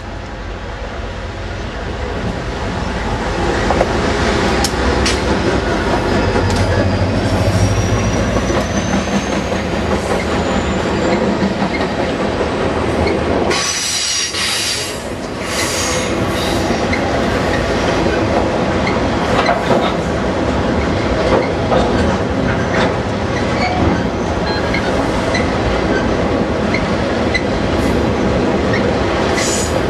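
A CSX freight train passing close by: the lead diesel locomotives draw near, getting louder over the first few seconds, then a long string of autorack cars rolls past with a steady wheel rumble and clatter. High-pitched wheel squeal comes in short spells about halfway through and again near the end.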